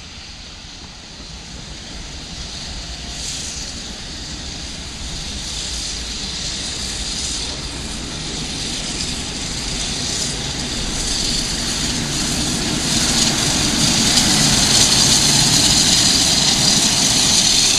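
Class 01.10 steam locomotive 01 1066 running with a steady hiss of steam over a low rumble, growing steadily louder as it draws near.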